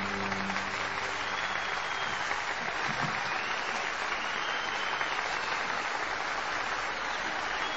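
A large crowd applauding steadily: dense, even clapping as a chanted song comes to an end.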